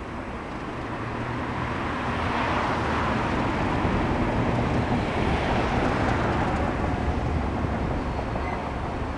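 Three Class 37 diesel locomotives with English Electric V12 engines passing close while hauling a loaded coal train, their engines running steadily and growing louder to a peak about four to six seconds in, then easing as the coal hoppers roll by.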